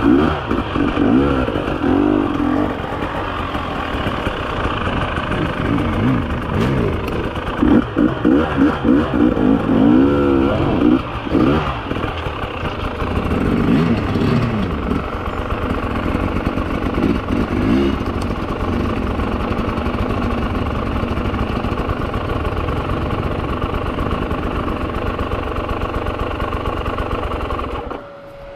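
300 cc two-stroke enduro motorcycle engine revving in short bursts on slow, technical going, its pitch rising and falling over and over, busiest in the middle. It cuts off near the end.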